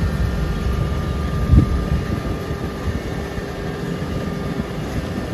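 Truck engine idling steadily under a low rumble, with one low thump about one and a half seconds in.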